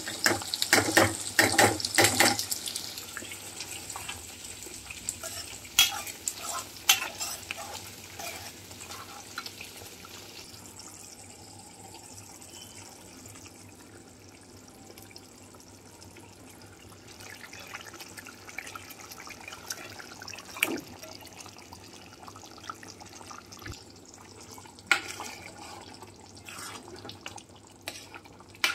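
Steel spoons scraping and clinking against a metal pan, busiest in the first couple of seconds, then single knocks now and then, over the steady sizzle and bubbling of a simmering masala gravy.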